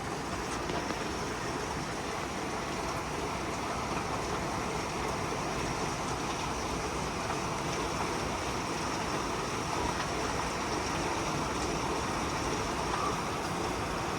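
Heavy rain pouring down steadily, a continuous even hiss with no letup.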